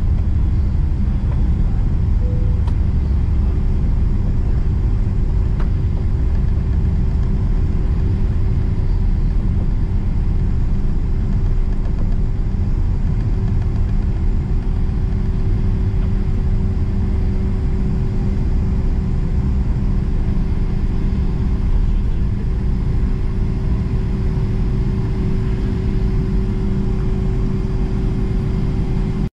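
Cabin noise inside a Boeing 777-300 airliner taxiing after landing: a steady low rumble of the idling jet engines and rolling landing gear, with a steady hum held at one pitch.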